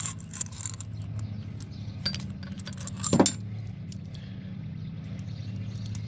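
Small steel tool pieces and a metal cylindrical case clinking in the hand as they are handled: a few sharp clinks, the loudest a little past three seconds in. A steady low hum runs underneath.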